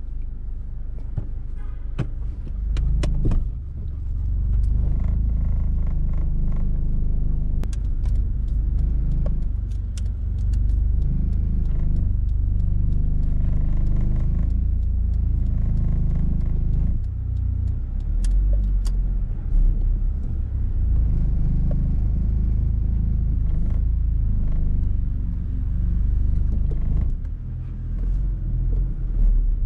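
Car running, heard from inside the cabin: a steady low engine and road rumble, with a few sharp clicks and rattles now and then.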